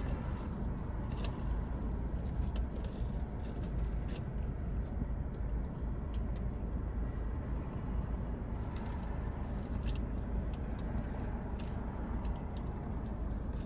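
Close-up chewing and mouth sounds, with scattered small clicks and crunches in two spells: over the first four seconds and again from about eight seconds in to the end. Under them runs a steady low rumble from the car.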